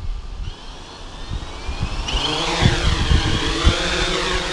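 AEE AP9 quadcopter's motors and propellers spinning up for takeoff: a high whine that rises in pitch and grows louder about two seconds in as the drone lifts off, then dips and rises again as it settles into a hover. A few low thumps sound under it.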